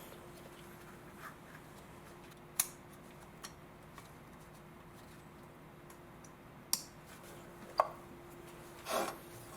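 A few sharp plastic clicks and knocks, several seconds apart, as an ignition coil pack is pushed down onto its spark plug and its electrical connector pushed on and locked.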